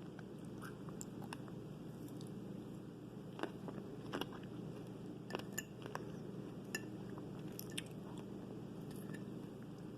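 Close-up sound of a person biting and chewing fresh fruit: irregular sharp, moist clicks and snaps over a steady low background hiss.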